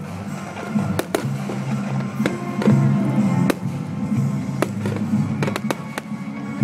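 Fireworks display: a dozen or so sharp bangs and cracks of launches and bursting shells at uneven intervals, over steady background music.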